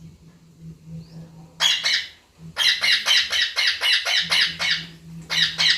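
Indian ringneck parrot squawking in harsh, rapid calls: a pair about one and a half seconds in, then a run of about ten at roughly five a second, then another pair near the end.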